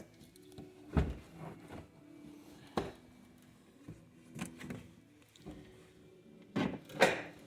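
Scattered knocks and clunks of car interior parts and tools being handled and set down, about five in all, with the loudest pair near the end.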